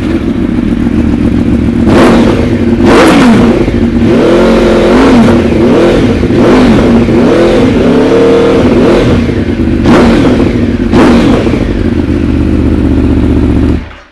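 Aprilia Tuono V4 1100 Factory's V4 engine, breathing through an Akrapovic carbon exhaust with a decat link pipe, running loud just after starting. It is blipped sharply twice about two and three seconds in, revved up and down through the middle, and blipped twice more near the end before it stops abruptly.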